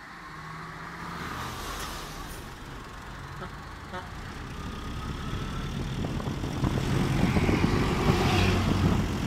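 Road noise heard from the open bed of a moving pickup truck: engine drone and tyre and traffic noise, including a bus running close alongside, growing steadily louder. Gusty wind buffets the microphone from about six seconds in.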